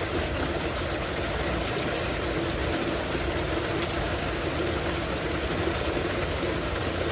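A tubewell's outlet pipe gushing water into its concrete tank in a steady rush, with the pump machinery's steady low hum underneath.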